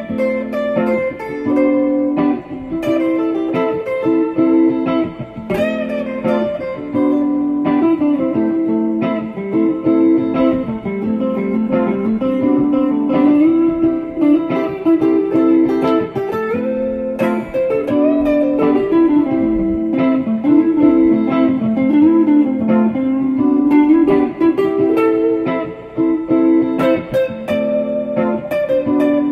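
Background music: a plucked guitar playing a melodic line, with some notes sliding up and down in pitch.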